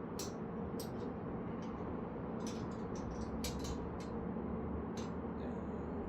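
Scattered light clicks and taps, about a dozen, some in quick clusters, over a steady low background hum.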